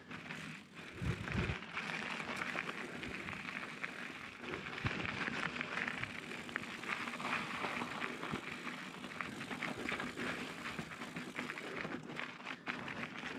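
Mountain bike rolling over a rocky, gravelly trail: tyres crunching and crackling on loose stones, with many small rattling clicks from the bike and a low thump about a second in.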